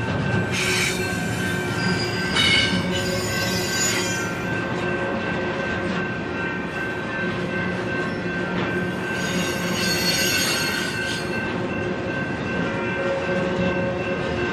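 Union Pacific intermodal freight cars rolling past on steel rails, a steady rumble with wheels squealing in high bursts three times.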